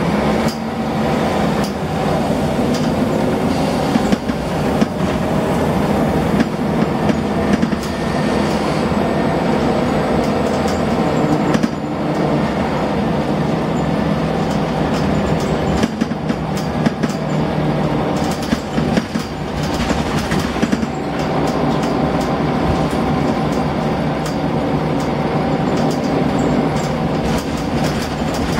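Scania L94UB single-deck bus's diesel engine and ZF automatic gearbox pulling the bus along, heard from inside the passenger saloon, with frequent knocks and rattles from the body and fittings. The engine sounds a bit rough.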